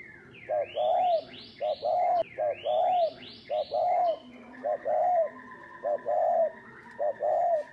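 Spotted dove cooing: seven coos in steady succession, each a short note followed by a longer, rounded one. Over the first half another bird gives two quick runs of rising chirps.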